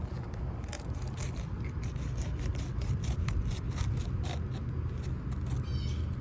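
A knife filleting a fish, slicing and scraping along the bones and skin in a quick series of short, crisp scrapes and ticks, over a steady low rumble.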